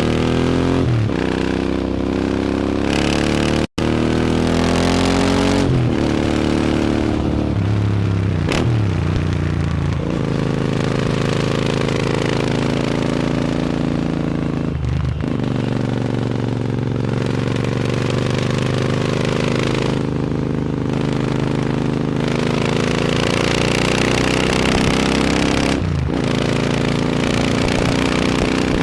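Royal Enfield Interceptor 650's 648cc parallel-twin engine through a loud aftermarket AEW exhaust, under way and accelerating through the gears. The note climbs in each gear and drops at each of several gear changes, with a very short break in the sound about four seconds in.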